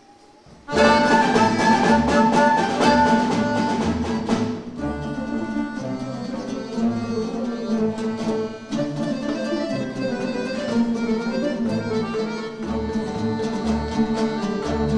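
A folk instrument ensemble playing, with plucked and bowed strings among the instruments. The music comes in suddenly about a second in with a loud, busy passage and turns softer about five seconds in.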